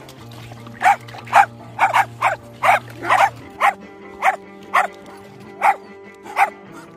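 A dog barking, about a dozen short barks in an uneven run, over soft sustained background music.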